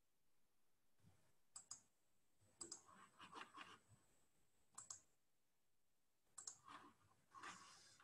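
Faint clicking from a computer mouse and keyboard, coming in several short clusters of clicks.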